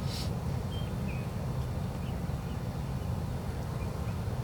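Outdoor field ambience: a steady low rumble on the microphone with a few faint, short bird chirps scattered through it, and a brief hiss right at the start.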